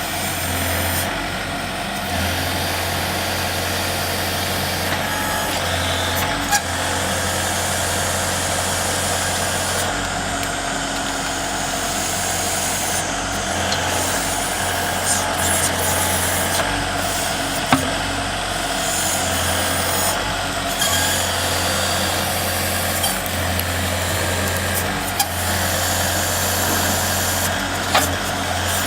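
Engine of a compact loader fitted with a backhoe attachment, running steadily under work, with a few brief sharp knocks.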